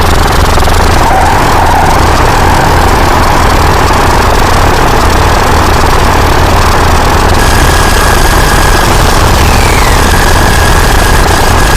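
Loud, dense mechanical rumble and clatter that runs steadily, with a thin steady high tone joining about seven and a half seconds in.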